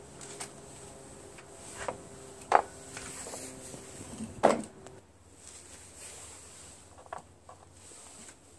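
Knocks and clatter of small tools and parts being picked up and set down, a few sharp ones with the loudest about two and a half and four and a half seconds in. A faint steady hum stops about five seconds in.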